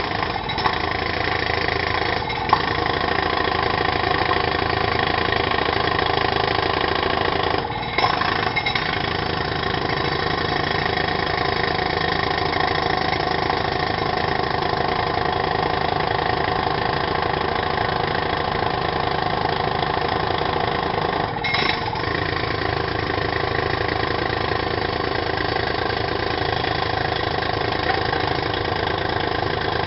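Pneumatic drill hammering steadily, broken twice by momentary pauses.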